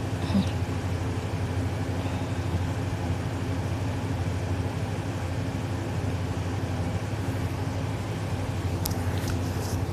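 A steady low mechanical hum that holds an even pitch and level throughout, with a few faint clicks near the end.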